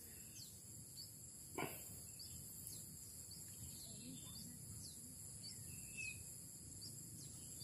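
Faint open-air ambience: a steady high-pitched drone of insects, with short, repeated falling bird chirps over it.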